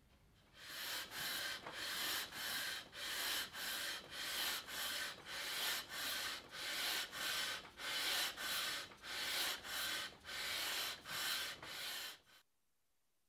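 Long sanding block rubbed back and forth along a Rocklite Ebano guitar fretboard, in steady, even strokes a little under two a second. It starts about half a second in and stops suddenly about a second before the end.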